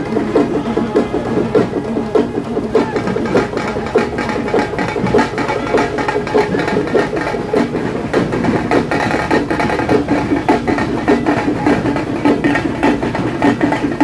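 Drums beaten in a fast, continuous rhythm.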